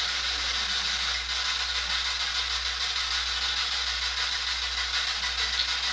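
Steady radio static hiss from a ghost-hunting spirit box, a radio that scans through frequencies, with a low hum underneath.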